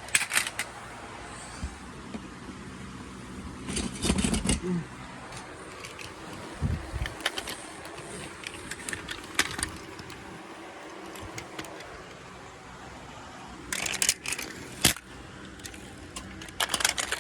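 A car driving, with steady road noise heard from inside the cabin. Short clusters of clicking and rattling come a few times, and there is a single low thump about seven seconds in.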